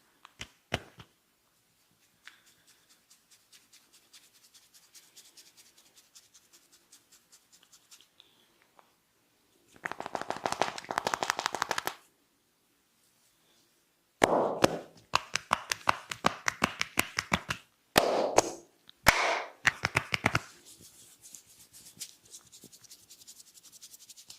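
Rapid trains of sharp clicks and snaps from a barber's hands working a client's head: a faint even series first, then a dense burst, then louder rapid bursts in the second half that fade toward the end.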